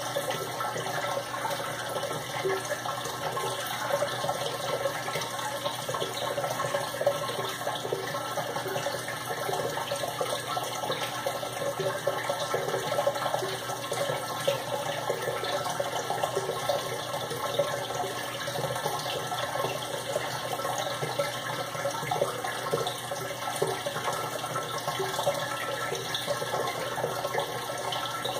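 Steady rush of water splashing and trickling into a turtle aquarium.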